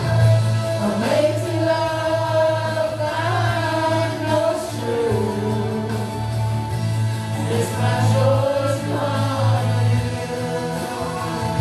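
Praise and worship team singing a gospel worship song in several voices over a musical accompaniment with a steady held bass note.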